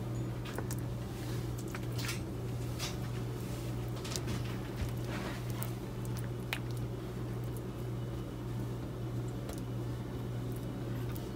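Soft, squishy scrapes and a few light clicks of a spoon spreading shredded chicken-mayonnaise filling over a slice of sandwich bread, over a steady low hum.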